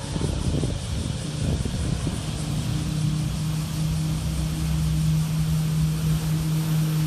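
A jet ski's engine running at a steady pitch, growing louder as the craft approaches, over a steady rushing noise.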